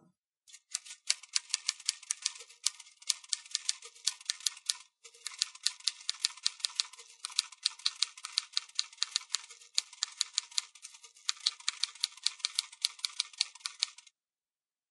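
Rapid typing, a fast run of sharp key clicks several strokes a second, with a brief pause about five seconds in; it stops shortly before the end.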